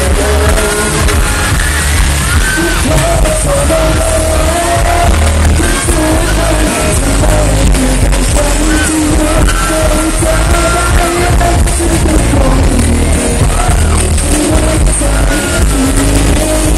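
A man singing a pop song live into a handheld microphone over loud amplified backing music, his voice carrying a flowing melody above a steady heavy bass.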